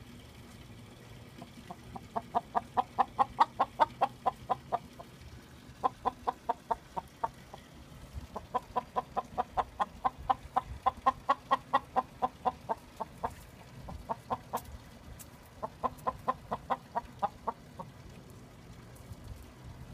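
Chickens clucking in quick runs of clucks, about five or six a second, in four bouts separated by short pauses.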